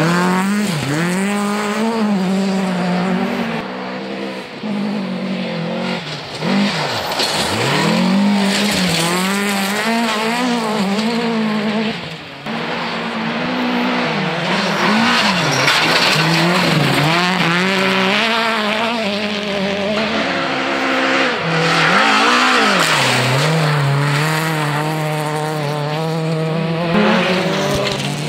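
Volvo rally car engines revving hard as the cars slide past on a gravel stage one after another. The pitch repeatedly climbs and then drops sharply with each gear change and lift-off.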